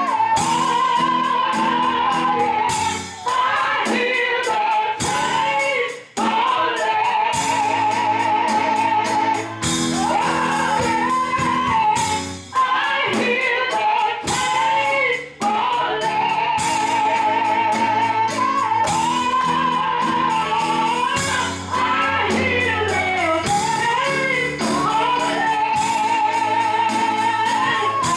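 Gospel worship song: a solo voice sings long held notes with wide vibrato over sustained instrumental chords, pausing briefly between phrases.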